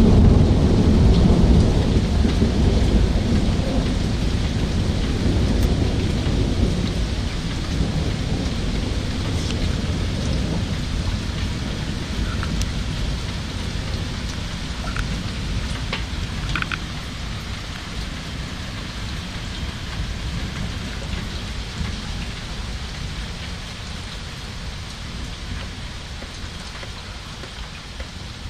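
Thunderstorm: a long roll of thunder rumbling loudly at first and slowly dying away, over steady rain falling.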